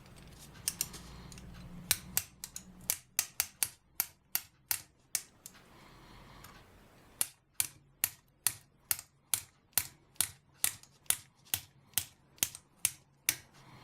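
Light, sharp metal taps on a hex driver set through a TBS 750 kV brushless motor, driving its top bearing out of the housing. The taps come about two or three a second, with a short pause about halfway through.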